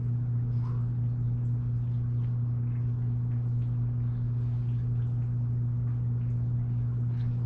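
A steady low hum with a fainter higher overtone, unchanging in pitch and level, with faint light ticks above it.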